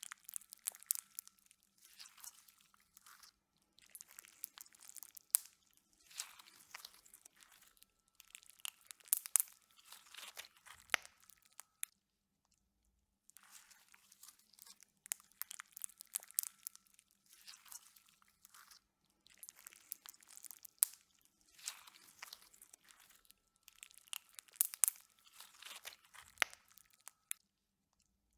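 Slime being squished and pressed by hand close to the microphone, crackling and popping in bursts of a second or two each, with a short silent break about halfway through.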